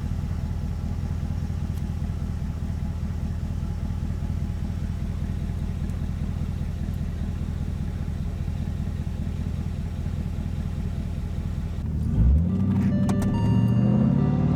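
Car engine idling steadily, then revved briefly about twelve seconds in. Music comes in near the end.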